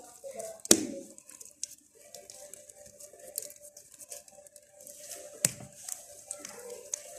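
Two sharp clicks, about five seconds apart, over faint steady background noise.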